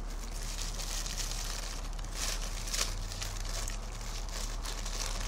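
Paper food wrapper rustling and crinkling in the hands as a fried potato griller is unwrapped, with a few sharper crinkles about two to three seconds in, over a steady low hum.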